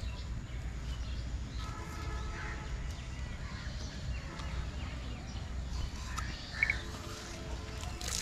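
Rural outdoor background: a steady low rumble with faint bird calls, including a short high chirp about two-thirds of the way through.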